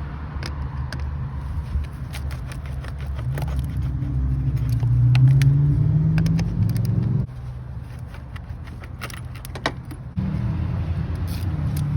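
A motor vehicle engine running with a low hum that climbs in pitch from about three to seven seconds in. It drops away suddenly and returns about three seconds later. Light metallic clicks and jingles sound over it.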